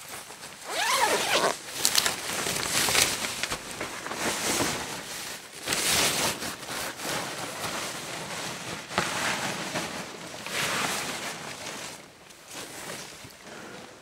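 Radiation suit foley: the suit's material rustling in a series of bursts, with a zipper being worked, as the suit is handled on or off the body. The bursts grow softer near the end.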